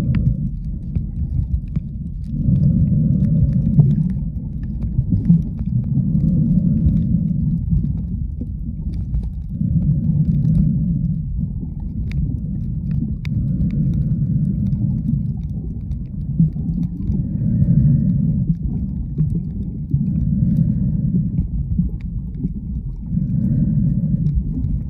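Muffled underwater rumble from a camera held below the surface while snorkeling, swelling and easing about every three to four seconds.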